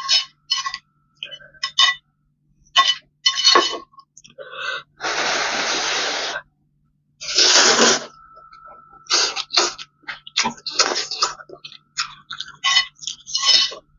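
Close-up eating sounds of spicy Korean noodles: wet chewing and lip smacks throughout, with two long slurps of noodles near the middle.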